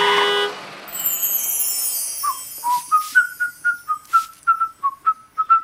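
Someone whistling a quick tune in a string of short notes. Before that, the last chord of a song dies away and a high sparkle effect falls in pitch.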